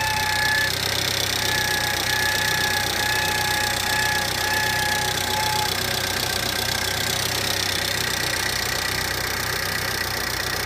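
Car engine idling just after a cold start, with an abnormal high whine pulsing in short beats over it that stops about five to six seconds in; the owner likens the noise to Alien Baltan's laugh.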